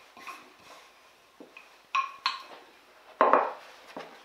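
Wooden rolling pin working puff pastry dough on a floured wooden board, then knocked down onto the board: two sharp clacks about two seconds in and a louder wooden knock near the end, with soft rubbing of dough between.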